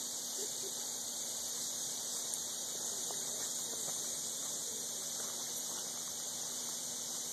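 Insects droning steadily at a high pitch without a break, with a faint low hum underneath.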